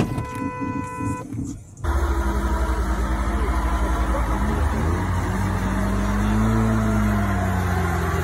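Semi-truck tractor's diesel engine running hard under load, its drive wheels spinning in snow as it jerks on a tow strap. The engine note rises and then falls.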